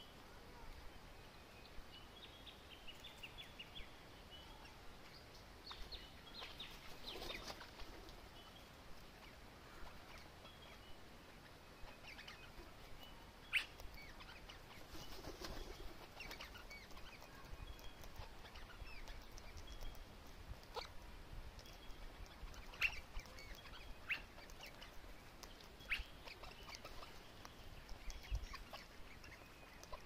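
Parrots calling, Australian cockatoos and lorikeets: scattered short, high chirps throughout, with a few louder, harsher calls and some sharp clicks.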